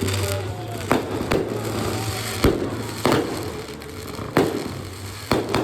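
Aerial fireworks going off: about seven sharp bangs at uneven intervals, two of them close together near the end, with crackling between them.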